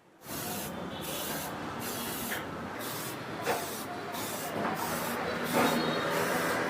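Spray paint hissing from a nozzle onto the bike frame in repeated passes. It starts suddenly about a quarter second in, and the hiss thins briefly about once a second.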